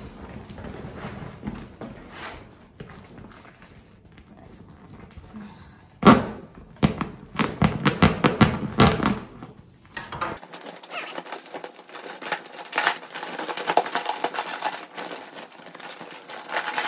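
Vinyl beach ball being crumpled and pulled out through a dried glue-stiffened twine shell: crinkling, crackling plastic with scratchy rustling and small knocks. It turns loud about six seconds in and stays dense after that.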